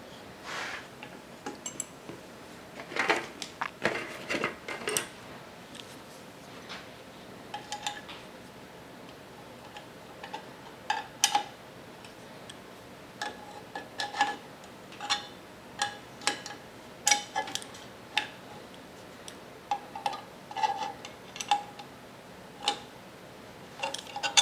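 Small metal parts and tools being handled, clinking and tapping irregularly, some knocks with a short metallic ring.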